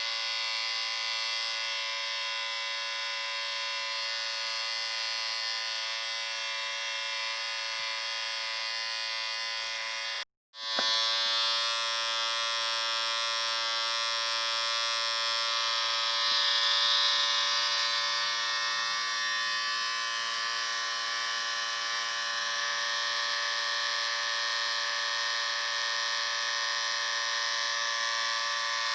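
Electric shaver motor buzzing steadily. About ten seconds in it cuts out for a moment, then the buzz starts again with a slightly different tone.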